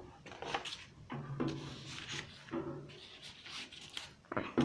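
Sheets of painted paper being handled and shuffled on a table: a run of soft, irregular rustles and light taps.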